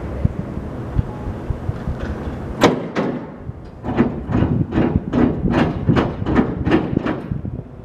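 A steady low engine rumble, then, from about two and a half seconds in, a quick run of a dozen or so sharp knocks, two to three a second.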